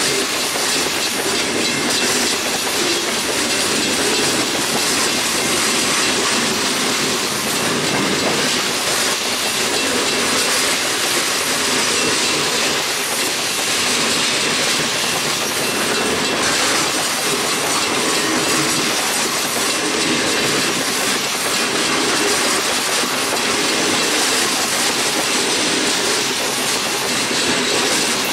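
Freight train rolling by on the rails: a steady, unbroken noise of wheels on track.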